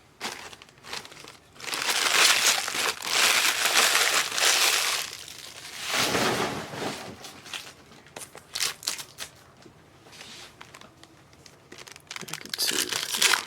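Trading card pack wrappers being torn open and crinkled by hand: two long stretches of loud crinkling in the first half, then scattered smaller crackles and rustles.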